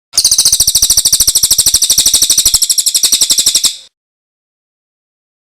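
Recorded songbird call: a fast, even trill of sharp, high notes, about a dozen a second, lasting about three and a half seconds and then cutting off.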